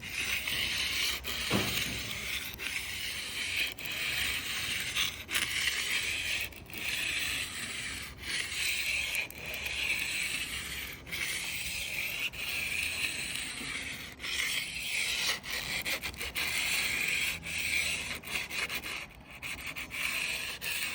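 Plumber's aluminium-oxide emery cloth rubbed back and forth along the rough stainless-steel panel edge of a Tesla Cybertruck, a rasping stroke about every second and a half. It sounds crunchy where the edge burrs are still being sanded off.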